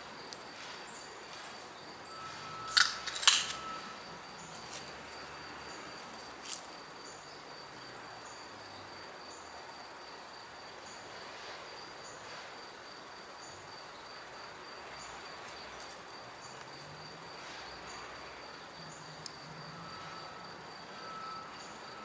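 Outdoor ambience with a steady high-pitched insect trill, broken by two sharp knocks about three seconds in and a fainter click a few seconds later.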